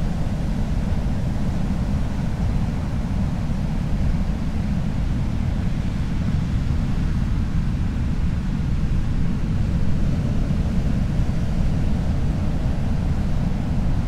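Ocean surf heard as a steady low rumble, with no single wave crash standing out.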